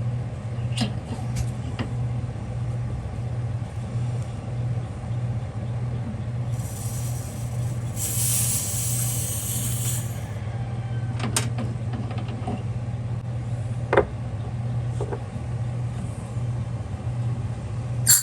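Refrigerant hissing out of a mini-split's service port for about three seconds while the Schrader valve core is screwed back in with a valve core removal tool. A few sharp metallic clicks come from the tool, and a steady low hum runs underneath.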